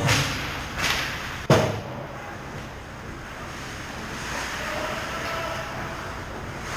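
Ice hockey play at the net: skate blades scraping across the ice, with a single sharp crack about a second and a half in, then steady rink noise.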